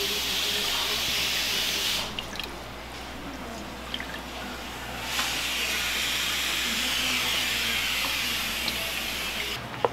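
Liquid streaming and splashing through a straining cloth into a pot as grated cassava is washed and wrung for its starch. It comes in two spells of pouring with a quieter stretch between them.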